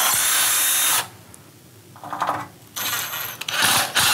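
Ryobi cordless drill running at a steady whine as it drills through the aluminium frame into concrete block, cutting off about a second in. Then a few short spurts of the drill driving a masonry screw into the block.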